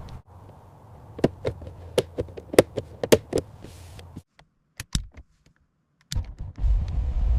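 A quick series of sharp taps and knocks, then a pause broken by two more knocks. Near the end a steady low rumble starts.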